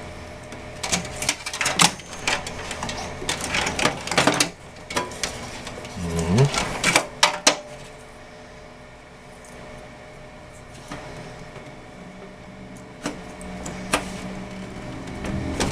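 Plastic clicks and rattles of computer power-supply cable connectors being handled and snapped into the drives, dense for the first half and then down to a few scattered clicks. A steady low hum runs underneath.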